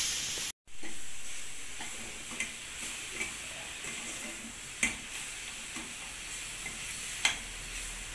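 Oyster mushrooms and onion masala sizzling in a stainless steel kadai as a steel spoon stirs them, with a few sharp clinks of the spoon against the pan. The sound cuts out for an instant about half a second in.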